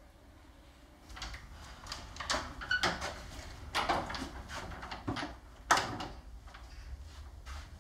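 A second of faint room tone, then a flat's front door being handled: a run of clicks and knocks from the handle and latch, with the loudest knock a little under six seconds in as the door is pushed shut.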